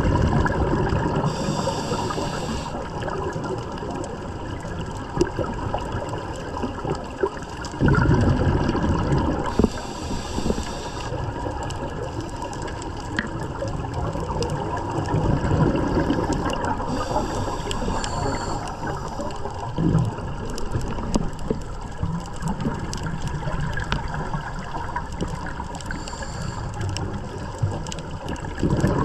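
Scuba breathing heard underwater through a camera housing: a short hiss of a regulator inhalation about every eight seconds, and rumbling, gurgling bursts of exhaled bubbles, over a faint steady hum.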